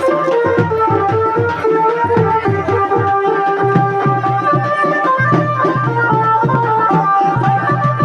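Loud Dhimsa folk dance music: a steady, fast drum rhythm under a long-held melody line.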